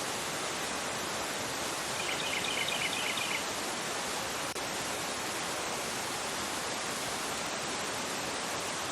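Fast river rushing over a rocky bed, a steady full hiss of water. About two seconds in, a small bird gives a quick run of high chirps lasting about a second and a half.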